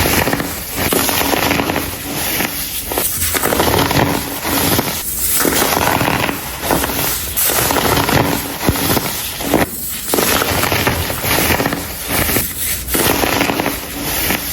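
Blocks of dyed baking soda crumbling: dense, crunchy crackling in repeated bursts, with short pauses every couple of seconds.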